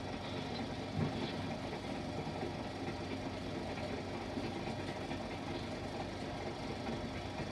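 Steady low rumble of a moving train, heard under the hiss and low hum of an old film soundtrack.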